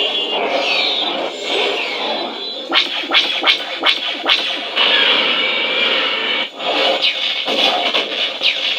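Lightsaber sound font, themed on TIE Fighter and X-Wing pilots, played through a saber: a steady buzzing hum with swing whooshes that fall in pitch, and a quick run of sharp clash hits about three seconds in.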